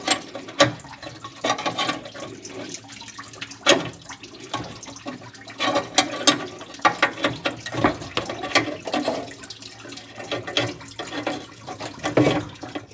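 Flare nut wrench on the transmission cooler line fittings at the radiator, working them loose: irregular metallic clicks and knocks of the wrench on the fittings.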